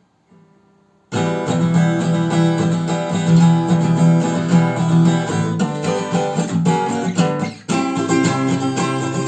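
Acoustic guitar strummed in full chords, coming in loudly about a second in after a faint start and briefly dipping shortly before the end.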